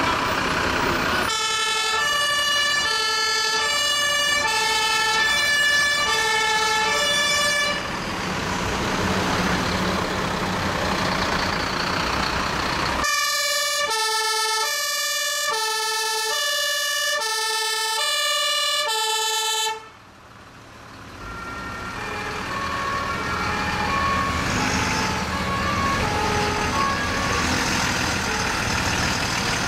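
German fire engines' two-tone sirens (Martinshorn) alternating between two pitches in two long stretches, with truck engine noise between them. The second stretch cuts off suddenly about two-thirds through, followed by a fainter two-tone siren over the low rumble of diesel truck engines.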